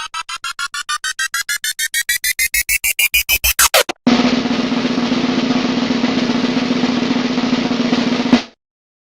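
Two stock sound effects: a riser of repeated beats that speed up and climb in pitch, ending in a quick sweep, then about four seconds of steady static-like hiss with a low hum that cuts off abruptly.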